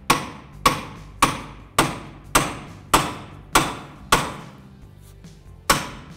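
Hammer driving a pickle fork between a steering knuckle and the ball joint of a lower control arm. Sharp, ringing metal-on-metal blows come about every 0.6 s, eight in a row, then after a pause one more near the end, wedging the ball joint stud out of the knuckle.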